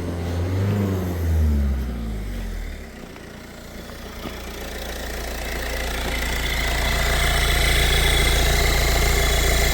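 Peugeot 1.6 HDi diesel engine idling at operating temperature, about 90 °C, while its electric radiator cooling fan cycles. The fan winds down with a falling pitch over the first few seconds, then spins back up from about four seconds in, building into a steady rush with a faint whine.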